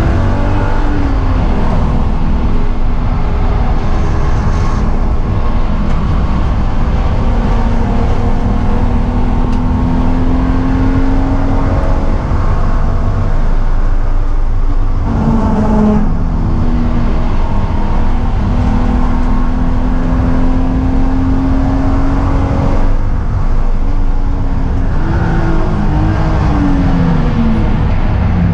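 BMW E36 M3 inline-six engine heard from inside the cabin at full throttle on track. The pitch climbs, falls back at an upshift about halfway and climbs again, then drops through downshifts with short rev rises as the car brakes hard near the end, all over steady road and wind noise.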